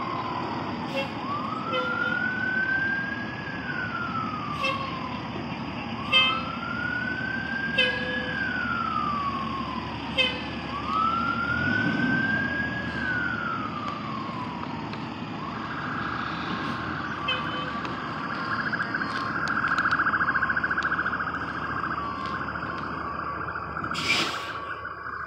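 Emergency vehicle siren at a crash scene, wailing slowly up and down in pitch, then switching about 15 seconds in to a fast warbling yelp. Short sharp beeps sound every second or two through the first half, and a brief loud rustle comes near the end.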